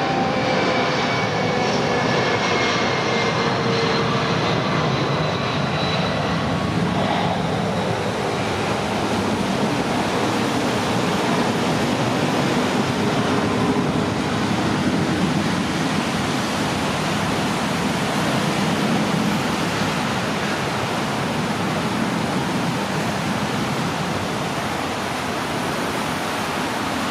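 Boeing 757-232 jet airliner's Pratt & Whitney PW2037 turbofans at takeoff thrust: whining engine tones fall in pitch over the first several seconds as the aircraft passes and climbs away, leaving a steady rushing jet noise that eases slightly near the end.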